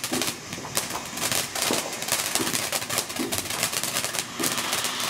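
Black Cat Bellagio Fountain ground firework spraying sparks, with rapid, irregular crackling pops over a steady hiss.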